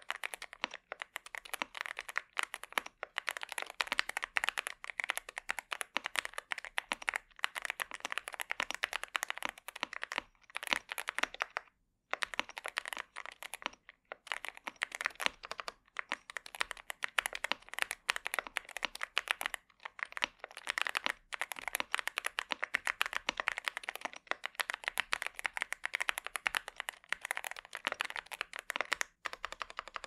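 Fast typing on a Yunzii AL66 65% aluminium mechanical keyboard with factory-lubed Yunzii Milk linear switches and a gasket-mounted polycarbonate plate: a dense run of keystrokes with a few brief pauses.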